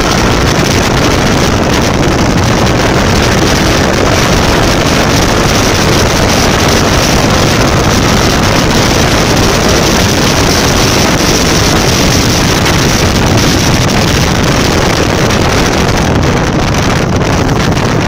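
Honda CRF 250 Rally motorcycle riding at road speed, its single-cylinder engine running under loud, steady wind rushing over the bike-mounted phone's microphone.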